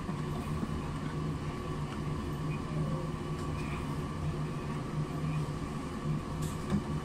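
Steady mechanical hum of lab equipment, with a low tone and a fainter higher tone, and a few faint light knocks as plastic Quanti-Trays are slid onto the incubator's metal shelves.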